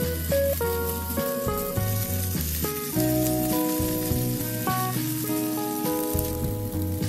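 Cheese pancake batter sizzling and crackling as spoonfuls are fried in oil in a frying pan, under background music.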